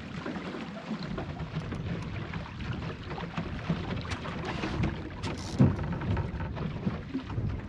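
Water splashing and lapping against a small plywood sailing skiff's hull, with wind buffeting the microphone into a crackling rumble. A single sharp knock comes about three-quarters of the way through.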